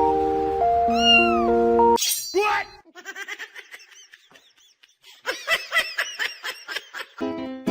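Background music, then about two seconds in a cat meows loudly, followed by a run of short, high, repeated mews, quieter at first and louder from about five seconds in. The music comes back near the end.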